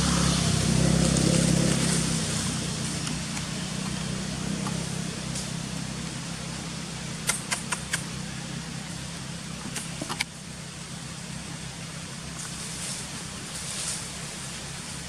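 A motor vehicle's engine hum, loudest at the start and slowly fading away, over a steady outdoor hiss. A quick run of four sharp clicks comes a little past the middle, with another click a couple of seconds later.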